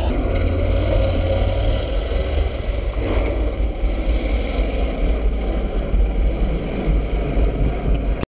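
Honda Talon side-by-side's engine running under load as the machine climbs a steep loose slope, a steady low rumble with a rushing noise over it. The sound cuts off abruptly near the end.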